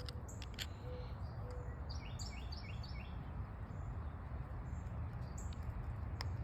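Songbirds chirping, with a quick run of about five chirps a little after two seconds in and scattered single chirps. A steady low background rumble runs under them.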